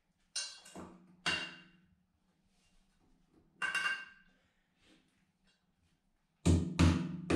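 Hammer driving nails through a steel Simpson strap into the plywood-sheathed timber wall: three sharp blows in the first second and a half, another near four seconds. Music with a steady beat comes in about six and a half seconds in.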